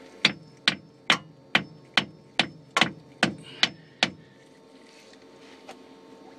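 Light hammer taps, about ten in a quick even run, roughly two and a half a second, stopping about four seconds in: tapping a temporary wooden plug into the propeller-shaft hole.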